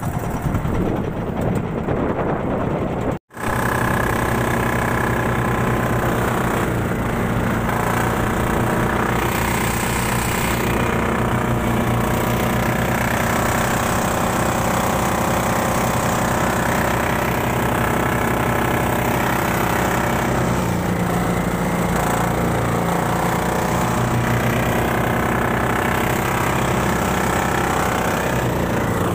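A small engine running steadily at an even pitch, taking up again after a sudden break about three seconds in.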